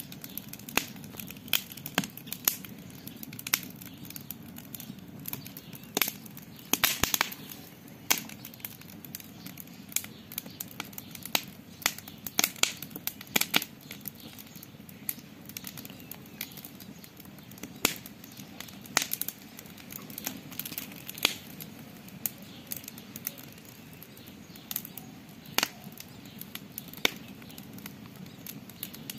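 Campfire crackling: irregular sharp pops and snaps, sometimes several in quick succession.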